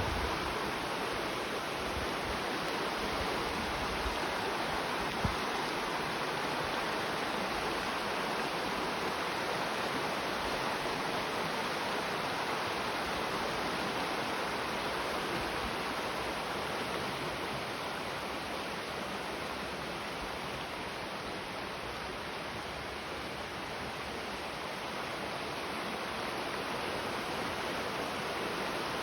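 Mountain river rushing over rocks: a steady wash of running water, easing a little in the second half.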